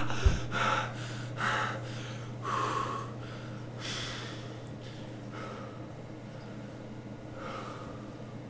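A man breathing hard after a scream: about seven audible gasping breaths that come further apart and fade as he calms down. A steady low hum runs underneath.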